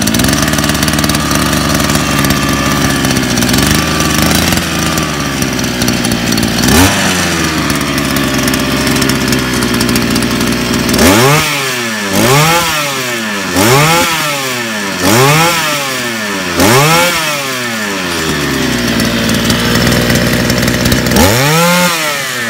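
Small two-stroke engine of a freshly rebuilt petrol brush cutter running: a steady idle with one short rev about seven seconds in, then about five quick throttle blips in a row, each revving up and dropping back, then idle again and one more rev near the end. The engine is being run in after reassembly and runs smoothly, with no vibration.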